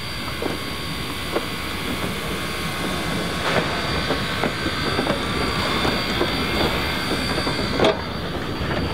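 NZR Ab class steam locomotive rolling slowly past at close range: a steady hiss of steam over irregular clanks and clicks from its wheels and running gear on the rails, with a sharper knock near the end.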